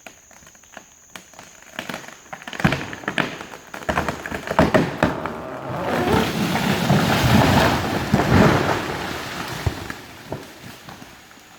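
A felled dead tree coming down: scattered cracks and snaps as the trunk gives way, building into a long crash of breaking branches and the trunk hitting the ground, loudest about six to nine seconds in, then dying away.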